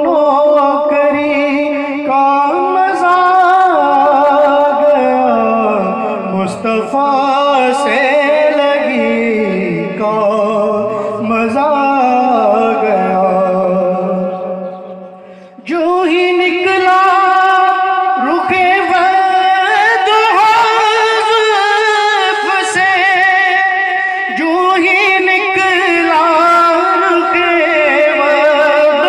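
A man singing a naat into a microphone over a PA, drawing out long ornamented notes that bend up and down. About 15 seconds in he breaks off briefly, then resumes on a higher pitch.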